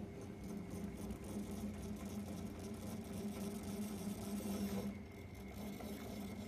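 A small electric motor humming steadily at a low, even pitch.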